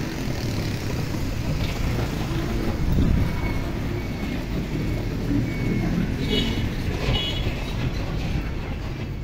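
Steady outdoor background rumble, with a few short faint high chirps about two-thirds of the way through.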